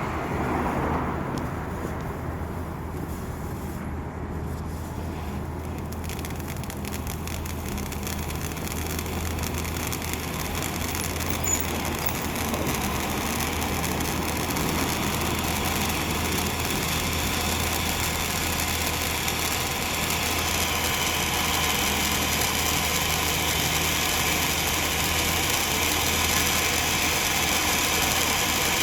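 13-inch conic firework fountain burning: a steady hiss of spraying sparks with fine crackling. It grows louder and sharper as it burns, stepping up about two-thirds of the way through.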